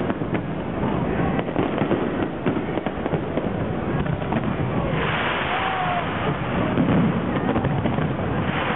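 Aerial fireworks bursting in a rapid, continuous run of bangs and crackles. About five seconds in, a denser crackling hiss joins.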